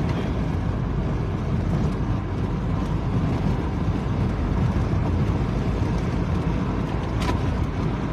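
Steady road and engine noise inside a moving car's cabin, a low even rumble, with a brief click about seven seconds in.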